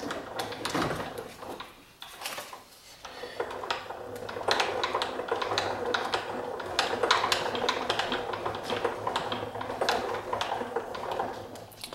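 PM-727M mill's spindle motor running with a steady hum while a 1/4 inch drill bit is fed by hand through the quill into a metal block, the cut making a rapid crackle of clicks. The cutting noise drops away briefly about two seconds in, then comes back louder.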